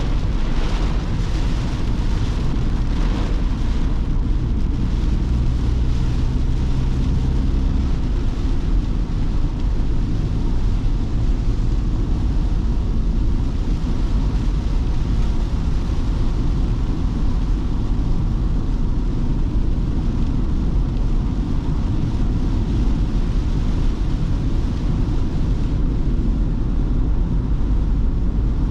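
Ford Transit Custom diesel van driving in heavy rain: steady engine and road rumble with the hiss of wet tyres and rain. The engine note shifts a little during the first several seconds, then holds even.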